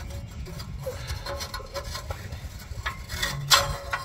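Metal knocking and rubbing as an old exhaust pipe is handled and worked loose under a 1989 Pajero, with two sharper clanks near the end, the louder about three and a half seconds in.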